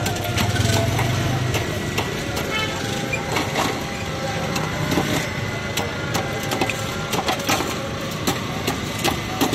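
Hand ice pick stabbing and chipping a large block of ice in a steel pot: repeated sharp strikes at an uneven pace, over steady street traffic noise.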